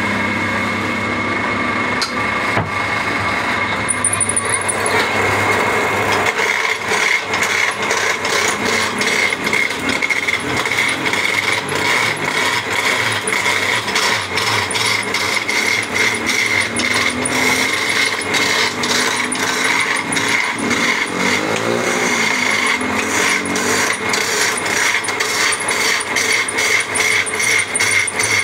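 Wood lathe running steadily with a whine, spinning a wooden blank for a charpai leg. From about six seconds in, a hand gouge cuts into the turning wood with a rapid rattling chatter, roughing down the squared blank and shaping it round.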